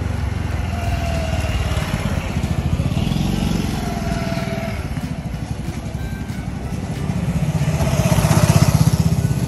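Motor scooter engine running as it rides up a lane and pulls up, with a steady low pulse that grows loudest about eight seconds in.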